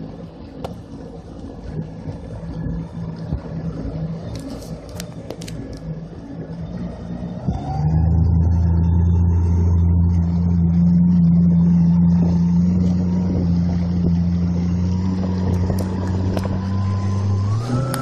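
Jet ski engine running at low speed, then the throttle opens about seven and a half seconds in. It settles into a loud, steady drone, and the pitch rises again near the end as it speeds up.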